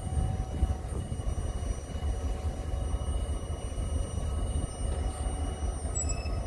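Two-stroke EMD 645 diesel engine of an M62M locomotive running with a low rumble as the locomotive pulls away with a train of coal wagons.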